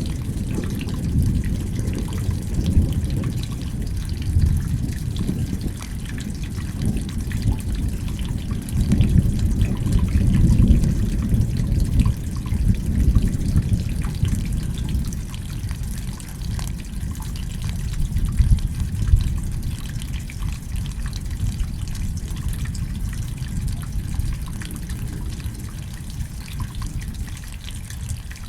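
Rain dripping and trickling steadily over a low rumble that swells about ten seconds in and slowly fades toward the end.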